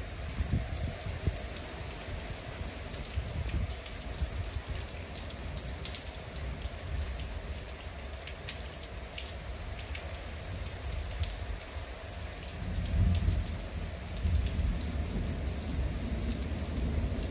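Rain falling steadily, with single drops ticking close to the microphone. A low rumble of thunder swells about two-thirds of the way through.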